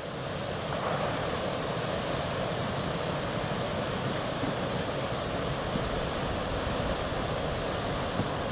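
Creek water rushing steadily as broken-up ice floes churn and move downstream during an ice break-up, a constant rushing noise.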